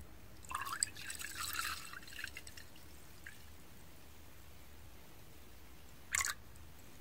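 Makgeolli poured into a ceramic cup, a splashing pour that is loudest for the first couple of seconds and then goes quiet as the cup fills, with one short splash near the end.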